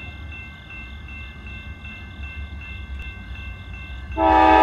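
A railroad grade-crossing bell dings steadily, about two and a half strikes a second. About four seconds in, the air horn of an approaching Norfolk Southern GE C44-9W locomotive starts suddenly and loudly, a chord of several notes.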